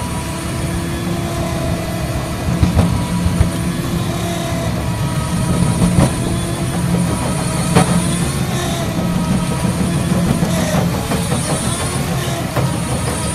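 Caterpillar 336E hydraulic excavator working a jaw crusher bucket: the diesel engine runs steadily under load while broken rock knocks and clatters in the bucket, with several sharp knocks along the way.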